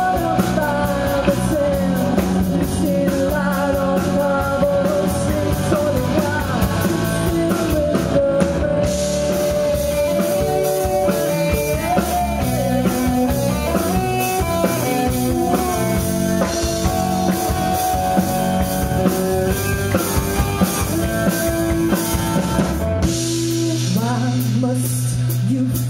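Live rock band playing: a woman singing into a microphone over electric guitar, bass guitar and drum kit. A held low chord comes in near the end.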